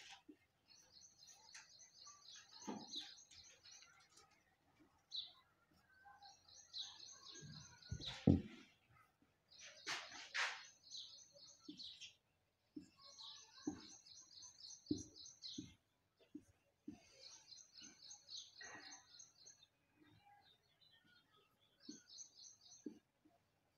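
Whiteboard marker squeaking on the board in about six short stretches as numbers are written, with light knocks of the marker tip between them.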